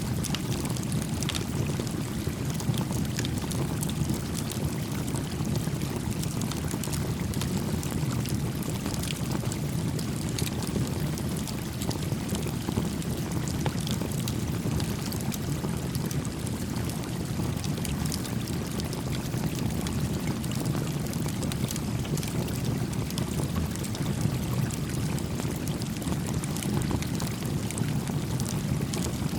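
Small campfire crackling with many small, irregular pops, over the steady low rush of a gently flowing stream.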